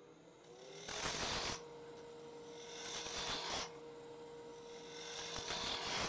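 Wood lathe motor coming up to speed, its hum rising and then holding steady about half a second in. Over it, a spindle roughing gouge cuts into the spinning wood blank in three passes of about a second each, about two seconds apart.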